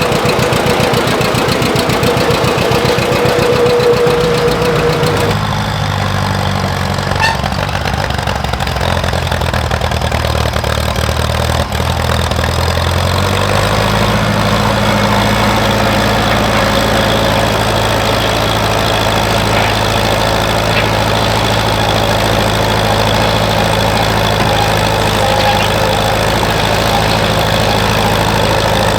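An engine running steadily, its note changing about five seconds in and again about halfway through.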